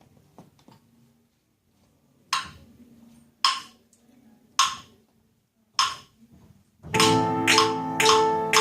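Four single, sharp percussion strikes about a second apart, like a count-in, then about seven seconds in a children's noise orchestra comes in: sustained pitched notes with percussion hits about twice a second.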